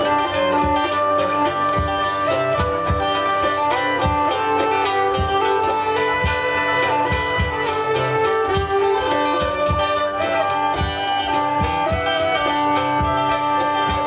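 Live acoustic folk band playing an instrumental break: fiddle and hurdy-gurdy carry the melody over a steady drone, with a cajón beat and a plucked string instrument.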